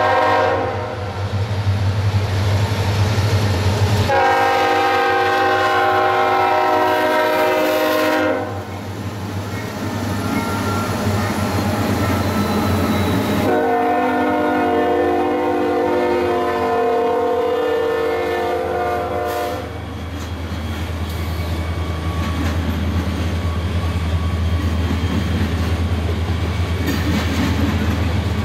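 Norfolk Southern freight's lead locomotive, an EMD SD70M-2, sounding its air horn in long blasts: one trailing off about a second in, a four-second blast a few seconds later, and a six-second blast from about 13 seconds. Under it the locomotives' diesel engines rumble past, and after the last blast the train's cars roll by with a steady rumble and wheel clatter.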